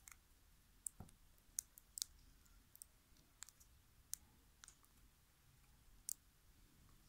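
Faint, scattered small clicks and taps, about a dozen, as a Toyota key fob remote's plastic casing and its CR2016 coin battery are handled and fitted.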